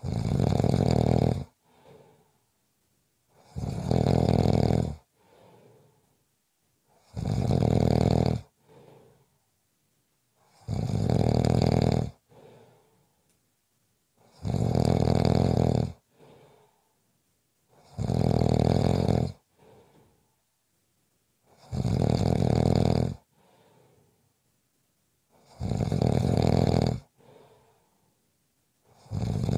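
A sleeper snoring steadily: a loud snore about every three and a half to four seconds, each lasting about a second and a half and followed by a faint, shorter breath.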